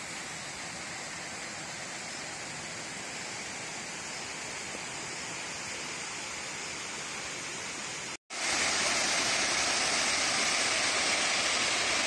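Steady rush of water from a mountain stream and waterfall. After a short break about eight seconds in, it comes back louder and hissier.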